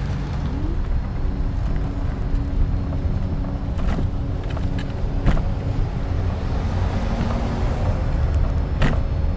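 Steady low rumble of road traffic on a busy street, with a faint steady whine under it and three sharp knocks spread through it.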